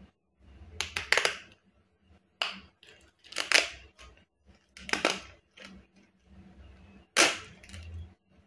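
Stiff glossy PVC ID-card sheet being flexed and handled, its plastic crackling in about five loud bursts with softer rustling between them.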